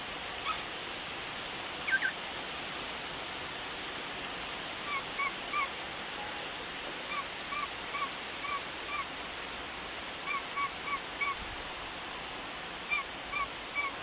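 Cockatiel giving short chirping calls in quick runs of three to five, repeated several times over a steady background hiss.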